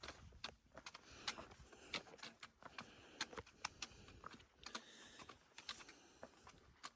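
Hiking boots stepping over a rocky trail: faint, irregular clicks and scrapes of soles on stone, several a second.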